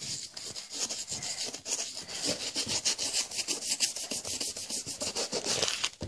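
Bristle brush scrubbing the wet canvas upper of a Converse All Star sneaker in rapid back-and-forth strokes, working baking soda and washing-up liquid solution into the fabric to lift the grime.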